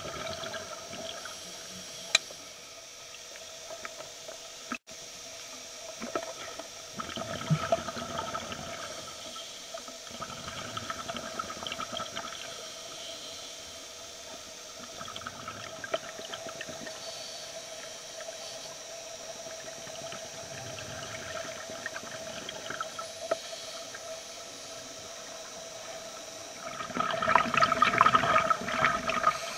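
Underwater sound of a scuba diver's breathing through a regulator: bursts of exhaled bubbles rushing past, the loudest near the end, over a faint steady hum.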